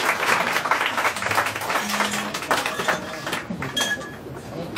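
Audience applauding, a dense patter of clapping that dies away about three seconds in.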